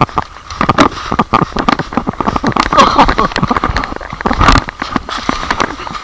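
Footsteps crunching and rustling through a thick layer of fallen leaves on the forest floor, a quick, irregular crackle of many small clicks, with one heavier thump about four and a half seconds in.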